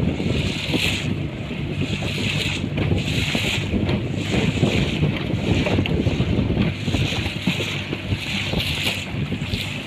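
Small motorised fishing boat's engine running steadily while trolling, with water rushing and splashing against the hull and wind on the microphone.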